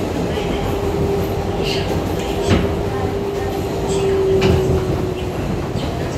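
Inside a moving 7 subway train car: the steady rumble of wheels and running gear, with a steady hum that stops about five seconds in. A few sharp clacks come from the wheels passing over rail joints.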